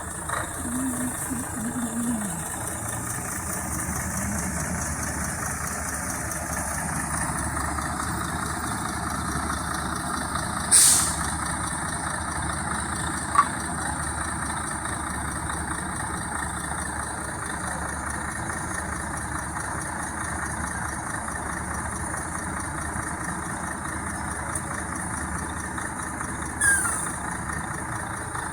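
An engine running steadily, with a few short, sharp, loud sounds, one about 11 seconds in and another near the end.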